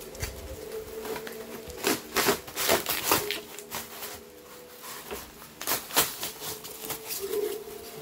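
A puppy digging into and chewing polystyrene foam in a cardboard box: bursts of scratching and crunching, the loudest about two to three seconds in and again around six seconds, over a steady low hum.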